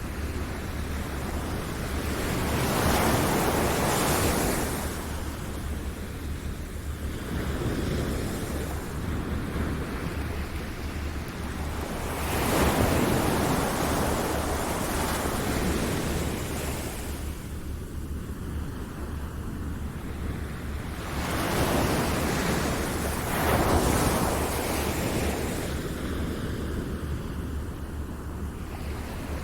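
Ocean surf, waves washing in and drawing back, the rush swelling and fading every several seconds, over a steady low drone.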